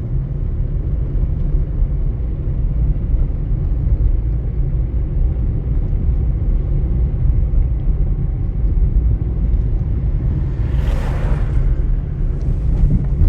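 Car driving slowly along a town street: a steady low rumble of engine and tyres, with a brief hiss about eleven seconds in.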